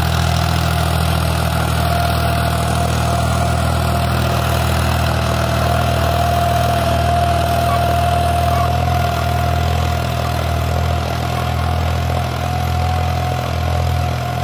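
John Deere 5036 D tractor's three-cylinder diesel engine running steadily under load as it pulls a disc harrow, with a steady high whine above the engine note.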